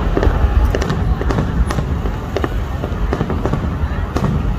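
Fireworks going off: a string of irregular sharp bangs and pops over a continuous low rumble.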